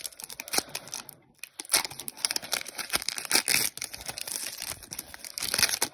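Foil wrapper of a Score football card pack being torn open and crinkled by hand: irregular crackling and tearing, with a short pause about a second in.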